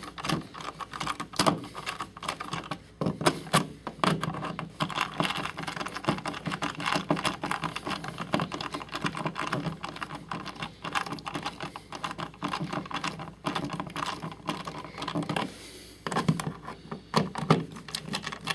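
A hand screwdriver driving the mounting screws of a new duplex outlet into an old-work electrical box: a dense run of small clicks and scrapes of metal and plastic, which eases off briefly near the end.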